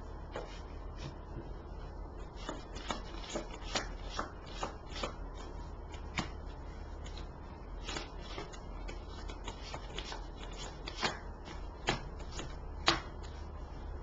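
A deck of tarot cards being shuffled by hand: a run of soft, irregular card slaps and snaps, several a second, with a sharper snap near the end.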